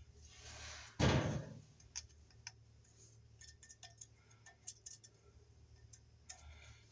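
Light handling noise: a rustling bump about a second in, then scattered small clicks and taps, as tools are handled while the circuit is checked to be off.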